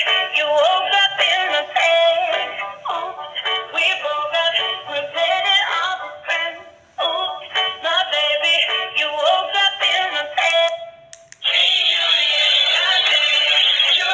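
Dancing cactus toy playing a song through its small, tinny speaker: high, synthetic-sounding singing. The tune breaks off briefly about halfway through and starts again, and about eleven seconds in it changes to a denser, unbroken sound.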